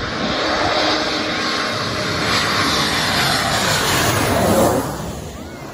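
Boeing 757-200 twin-engine jet airliner passing low directly overhead on landing approach. Its jet engine noise builds to a peak about four and a half seconds in, then drops away quickly with a falling pitch as it passes.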